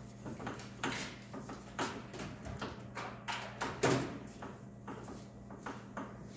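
Irregular metallic clicks and knocks as a Kryptonite Death Grip tie rod is handled and worked through the front suspension arms to be threaded in. The loudest knock comes a bit under four seconds in, over a steady low hum.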